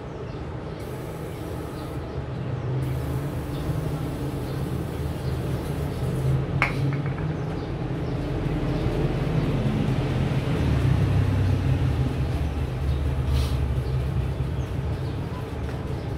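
Steady low rumble of a running vehicle engine, growing louder from about ten seconds in, with one sharp click about six and a half seconds in.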